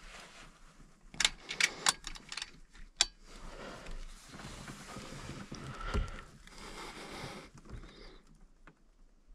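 Handling noise inside a car cabin as a scoped PCP air rifle is readied at the open side window: a quick series of sharp clicks and knocks, then rustling with a dull thump.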